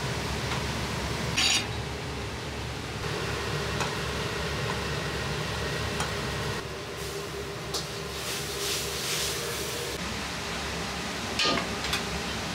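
Restaurant wok station: the steady roar of a gas wok burner, with metal ladle and wok clanks, the loudest about a second and a half in and near the end. There is a spell of hiss just past the middle.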